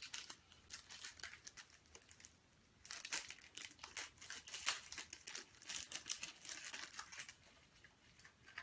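Plastic packaging crinkling and tearing as an item is unwrapped: scattered crackles at first, then a dense stretch of crinkling in the middle that dies away near the end.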